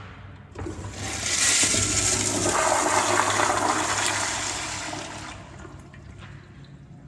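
Toilet flushing: a rush of water that builds about a second in, runs loud for about four seconds, then tails off.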